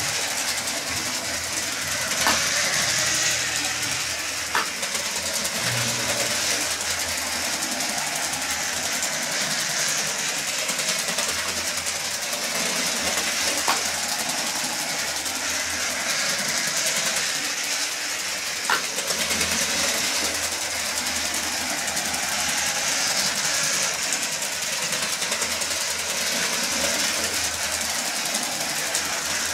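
Electric Lego train motors and wheels running along the track: a steady mechanical whir that swells every six or seven seconds as a train passes close, with a few sharp clicks.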